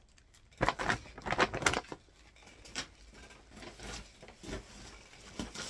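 White tissue paper rustling and crinkling as it is handled and crumpled, loudest in a burst of crinkles from about half a second to two seconds in, then softer scattered rustles.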